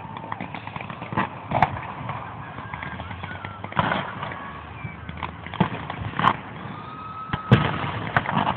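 Fireworks going off: a string of irregular booming bangs, about eight or nine in all, the loudest a cluster near the end.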